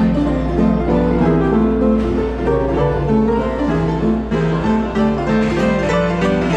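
Instrumental music: a quick run of short notes on strings and piano over a steady low bass hum.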